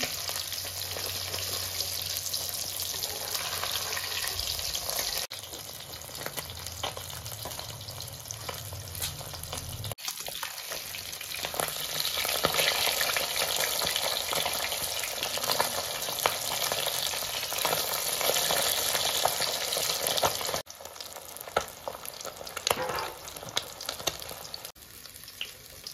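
Bata fish sizzling as they fry in hot oil in an aluminium kadai, a steady hiss with spattering crackles and pops. A metal spatula scrapes and turns them in the pan partway through. The sound breaks off sharply a few times.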